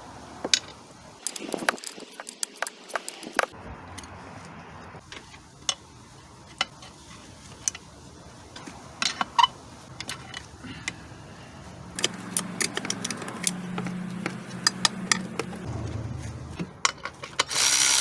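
Hand wrench work on the bolts of a V6 engine's upper intake manifold: scattered clicks and clinks of a metal tool and bolts. A run of rapid ratchet clicking starts near the end.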